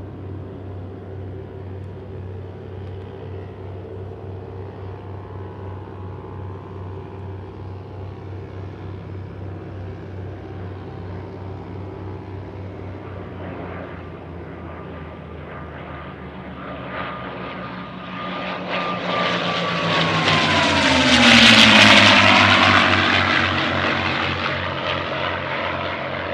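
A pair of P-51 Mustangs' Packard Merlin V-12 engines droning steadily in formation flight. The sound grows much louder as the planes pass close, about twenty seconds in, and the engine pitch drops as they go by.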